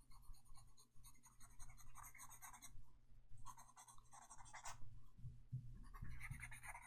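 Writing on paper: a pen scratching in about four runs of strokes with short pauses between them.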